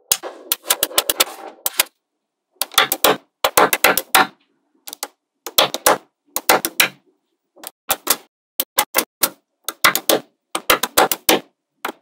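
Small magnetic balls clicking together as pieces made of them are set onto a magnetic-ball wall: short runs of sharp clicks, one run every second or so, with dead silence between.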